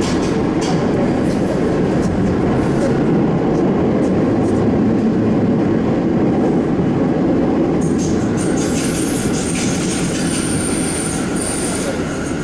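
Sendai Subway Tozai Line 2000-series linear-motor train running through a tunnel, a steady loud rumble. About eight seconds in, a thin high-pitched squeal from the wheels joins as the train takes a curve.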